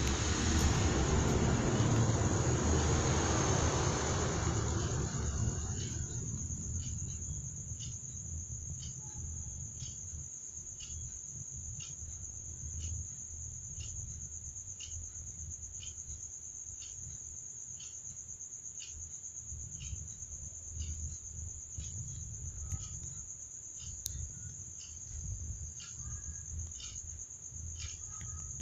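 Crickets trilling steadily at a high pitch, with short separate chirps about once a second. A louder rushing noise fades away over the first five seconds.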